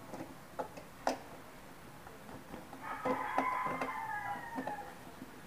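A rooster crowing once, a drawn-out call of about two seconds that sags slightly in pitch at the end, heard faintly. Before it, about a second in, there are a few light clicks from handling the table parts.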